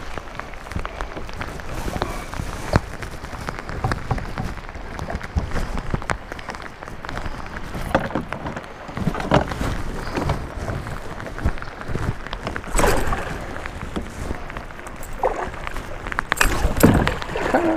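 Heavy rain falling on the lake and kayak, with frequent knocks, bumps and rustling as a rain jacket rubs against the camera's microphone.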